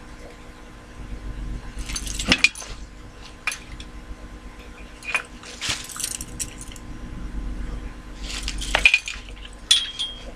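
Hands working with small tools and hard objects: a series of short scrapes and sharp clinks, the loudest about two seconds in and near the end, over a faint steady hum.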